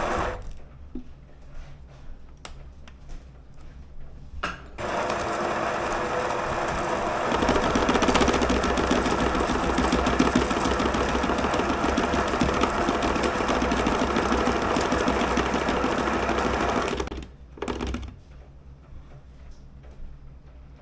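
An espresso machine's vibratory pump buzzes steadily for about twelve seconds, pushing water through the group head, likely to rinse the portafilter. About two seconds in, the buzz gets louder and deeper. A few light knocks come before it, and a short burst of the pump comes just after it.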